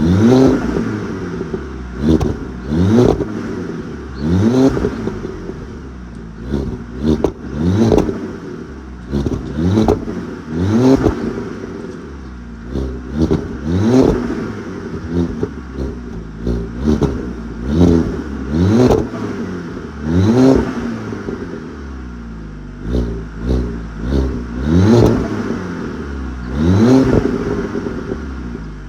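Turbocharged Audi A4 engine revved again and again, every second or two, rising in pitch with each blip, with the exhaust popping and crackling as the revs fall.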